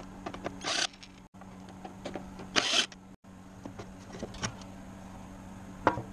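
A cordless drill backing out the housing screws of a garage door opener in two short whirs. It is followed by light clicks and a knock as the cover is handled and lifted off.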